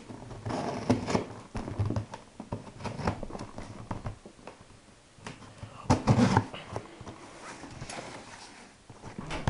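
Cardboard shipping box being handled and opened by hand: irregular rustling and scraping of cardboard with scattered knocks, and a louder bump about six seconds in.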